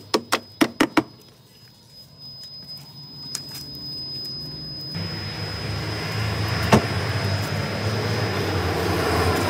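A small hammer tapping about five quick times on a rusted-out steel car rocker panel. A steady low rumbling noise follows after about five seconds, with a single sharp knock partway through.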